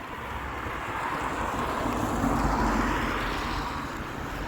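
A vehicle driving past, its rushing noise and low rumble swelling to a peak about halfway through and then fading.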